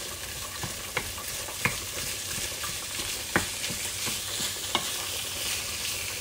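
Minced meat and chopped onions sizzling in olive oil in a frying pan, being stirred with a wooden spatula that knocks against the pan a few times, the loudest knock about three and a half seconds in.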